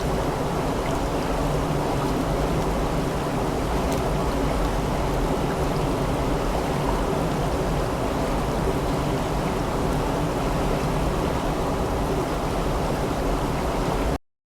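Stream water flowing steadily in an even rush. It cuts off abruptly near the end.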